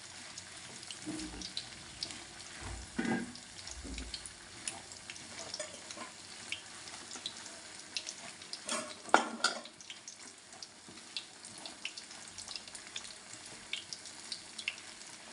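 Egg and vegetable filling sizzling and crackling in a hot pan as a wooden spatula stirs it, with louder scrapes of the spatula about three seconds in and again around nine seconds in.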